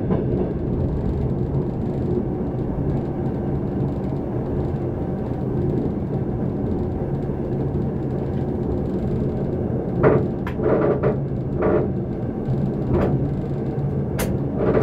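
Electric passenger train running, heard from the driver's cab: a steady low rumble with a low hum. From about ten seconds in, a handful of short knocks and clacks come through.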